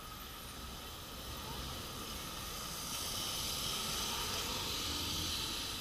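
Traffic on a wet road: tyres hissing on the water, swelling from about halfway through as a city bus and a car pass close by, over a low engine rumble.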